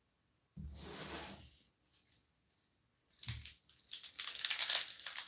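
Foil wrapper of a Bowman baseball card pack crinkling and tearing as it is opened, a rapid crackle that starts about three seconds in, after a brief soft rustle.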